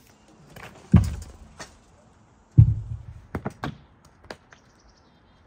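Two heavy, dull thuds about a second and a half apart, followed by a quick run of three or four sharp knocks and one last knock.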